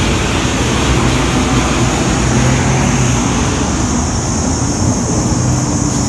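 Road traffic going by: a steady rush of vehicle noise with a low engine hum that drops out briefly near the middle, over a steady high-pitched buzz.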